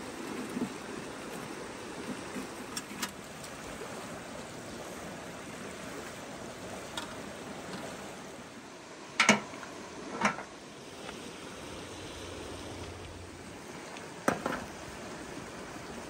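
Stream rushing steadily, with three sharp knocks from the metal fire barrel and cookware being handled, about nine seconds in, again a second later and once near the end.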